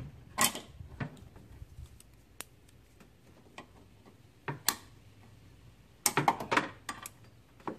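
Metal hand tools clicking and clinking on an engine: a handful of separate clicks, then a quick run of clicks about six seconds in.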